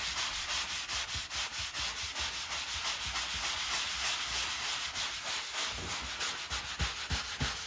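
Wet drywall sanding sponge scrubbed back and forth over dried joint compound on drywall, a steady rubbing hiss with a quick, even stroke rhythm. This is wet sanding, which smooths the mud without raising dust.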